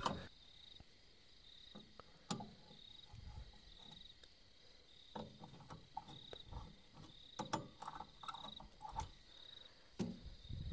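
Cricket chirping, a faint high note repeated in short regular pulses, with a few faint knocks and clicks scattered through.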